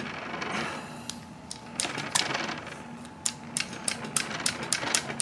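Handling noises from a revolver and its cleaning gear: a soft rustle near the start, then from about two seconds in an irregular series of sharp clicks and taps.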